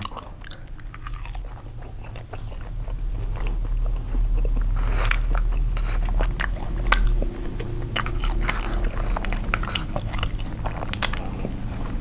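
Close-miked chewing: wet mouth smacks and crisp clicks of a man eating soy-sauce-pickled seafood and garlic rice. It is quieter for the first couple of seconds, then busier.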